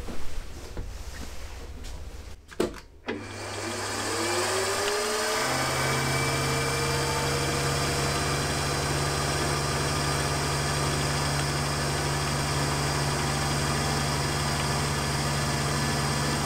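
A few knocks, then about three seconds in a milling machine's spindle motor starts, its whine rising in pitch and settling. It then runs steadily as the end mill cuts the edge of an aluminium plate.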